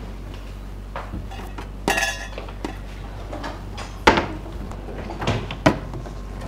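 Kitchen drawers and cabinet doors being pulled open and pushed shut, with dishes and cutlery clinking inside. It comes as a string of separate knocks and clatters, the loudest about four seconds in.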